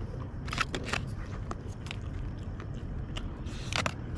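Chewing and crunching of food close to the microphone: irregular small crunches and clicks over a low steady rumble.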